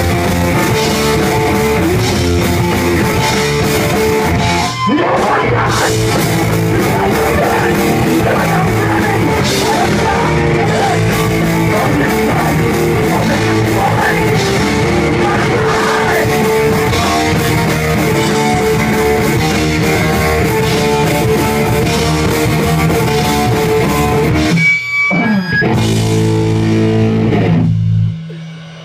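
Live rock band playing loud: electric guitar, bass and drum kit. About 25 s in the band stops briefly, hits a final held chord, and the song ends about a second before the end.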